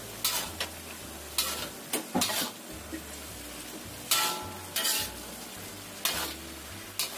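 Spatula scraping and knocking against a pan, about nine irregular strokes, as mustard greens are stirred in a sizzling tauco and oyster-sauce sauce, with a steady sizzle underneath.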